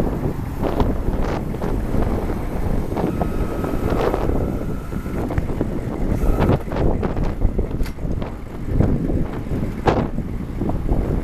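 Wind buffeting the microphone: a loud, uneven rumble with gusty swells, and a faint steady whine for a couple of seconds near the middle.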